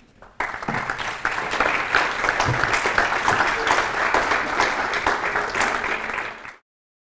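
Audience applauding, starting about half a second in after the closing words of a talk and cutting off suddenly near the end.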